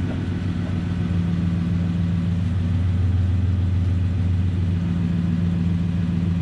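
Chevrolet Silverado's 5.3-litre V8 idling steadily on fresh oil, a little fuller about two seconds in; it runs smoothly and sounds good.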